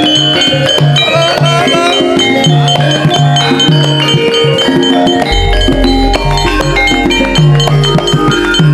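Lively live Javanese gamelan-campursari music with no singing: kendang hand drums driving a repeating rhythm under ringing tuned metal percussion. A deep bass tone comes in a little past halfway.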